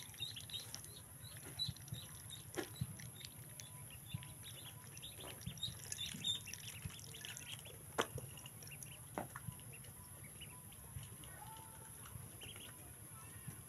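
A brood of ducklings peeping, many short high calls overlapping, with a few sharp clicks among them.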